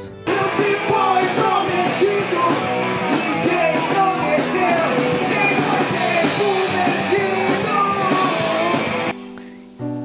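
A male singer singing over a rock band with guitar, cutting off suddenly shortly before the end.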